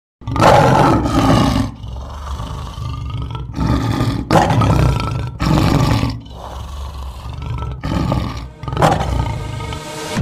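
Lion roaring, several loud roars over a deep, continuous low rumble, as a logo sound effect.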